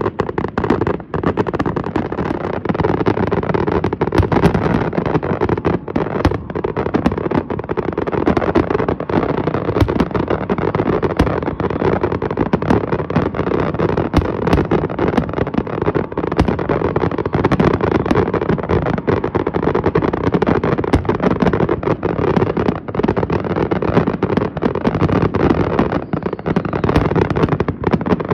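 Fireworks display in full barrage: many aerial shells firing and bursting at once, a continuous stream of overlapping bangs and crackles with no let-up.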